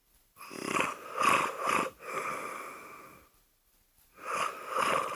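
A sleeping child snoring: a rough, rattling snore for about a second and a half, then a fainter breath with a thin whistle, a short pause, and the next snore starting near the end.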